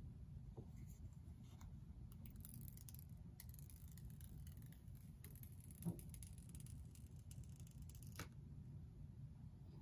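Faint crackling and rustling as the white paper protective film is peeled off an iPhone 12's screen, with one soft bump about six seconds in.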